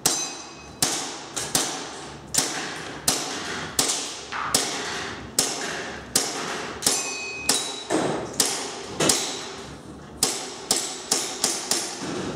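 KWA full-metal M1911 Mark IV gas blowback airsoft pistol firing about twenty shots in a steady string, roughly one or two a second, with several shots coming closer together near the end. Each shot is a sharp crack that echoes in the room, and a few are followed by a brief high ringing.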